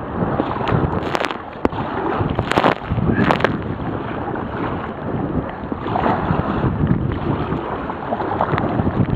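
Strong wind, 35 gusting 55 knots, buffeting the microphone of a waterproof camera on a sea kayak, with waves splashing around the kayak. There are a few sharper splashes in the first few seconds and another about six seconds in.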